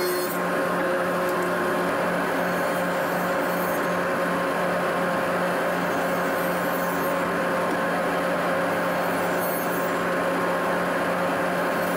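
Table saw running steadily while wood boards are ripped into thin strips. A higher hiss of the blade cutting comes and goes as each board is pushed through.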